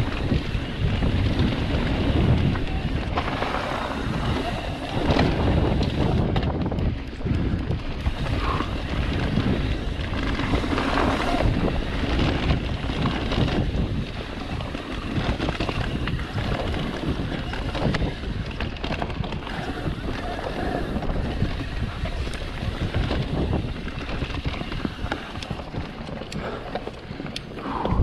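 Wind rushing over a chest-mounted camera's microphone as a Norco Sight full-suspension mountain bike rolls fast down a packed dirt trail, with tyre rumble and repeated knocks and rattles as the bike runs over bumps.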